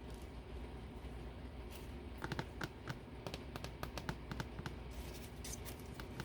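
Irregular light taps and clicks of paper craft pieces being handled and set down on a tabletop, coming in a cluster from about two seconds in, over a low steady hum.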